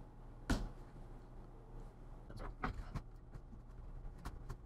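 Small plastic clicks and taps as a laptop's replacement keyboard is connected and pressed down into its frame: one sharp click about half a second in, a cluster of clicks in the middle, and more clicks near the end.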